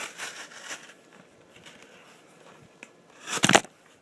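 Buck 285 pocket knife blade scraping and slitting through a cardboard package, then a short, loud tearing rip of cardboard about three and a half seconds in.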